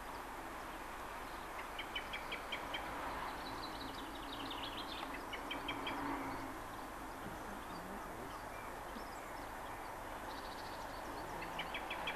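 Birds singing in short, quickly repeated trills over the distant rumble of an approaching double-headed steam train, an SR Battle of Britain class and a BR Britannia class locomotive working together. The train sound swells and grows louder near the end.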